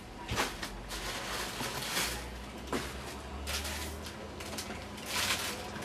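A small gift box and its packaging being opened by hand: a few short rustles and scrapes, each lasting under a second, with light knocks in between.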